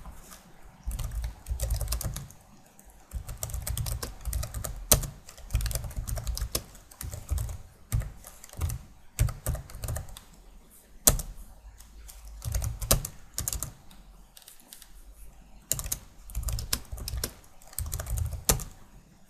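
Computer keyboard typing in quick runs of keystrokes with short pauses between them, with a few sharper, louder single key strikes.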